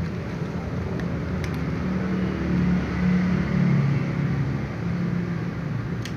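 A steady low motor rumble, such as a vehicle engine running nearby, with a few faint clicks about a second in.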